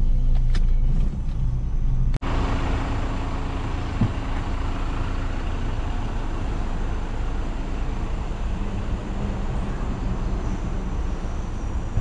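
Car running with a steady low rumble, broken by an abrupt cut about two seconds in, after which a steady noise of the moving vehicle continues.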